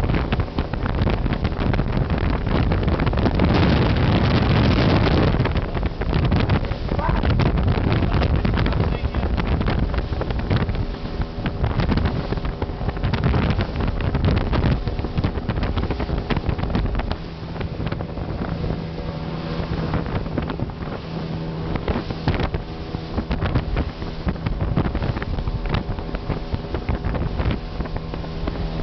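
Motorboat engine running steadily under way, with wind buffeting the microphone. About 17 seconds in, the wind noise eases and the engine's steady low hum comes through more plainly.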